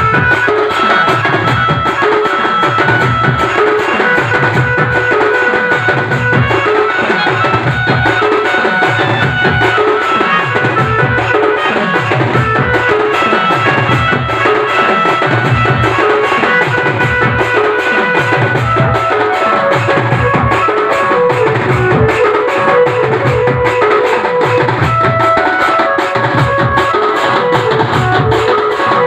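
Wedding band party playing dance music: deep drum beats that drop in pitch keep a steady rhythm under a sustained melody line.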